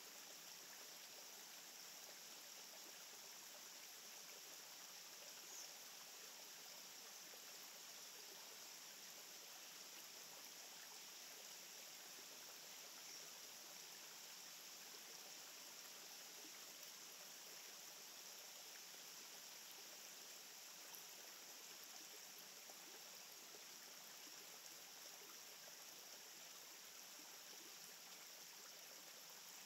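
Near silence: a faint, steady hiss of outdoor background noise with no distinct sounds in it.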